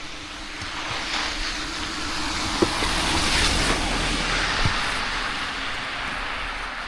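A vehicle driving past, its tyre hiss and engine rumble swelling to a peak a few seconds in and then fading away.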